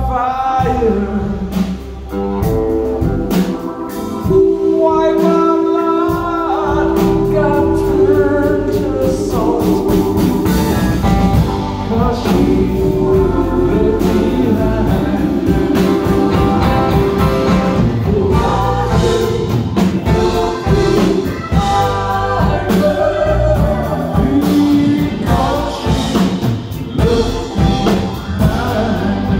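Live band playing a rock song on electric guitar, bass, keyboards and drums, with voices singing over it.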